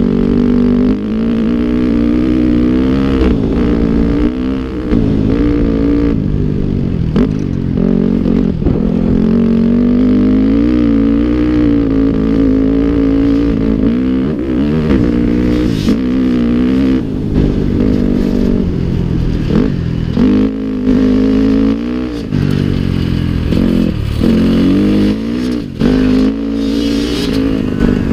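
Dirt bike engine heard close up from the rider's own bike, its pitch rising and falling constantly with the throttle, with short drops every few seconds where the throttle is closed.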